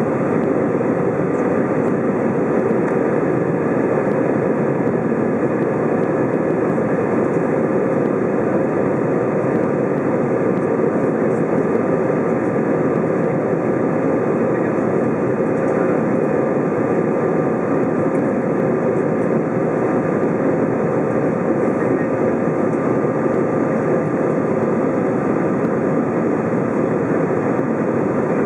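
Steady in-flight cabin noise of an Airbus A320: engine and airflow rumble heard inside the cabin, with a faint steady hum on top and no change in level.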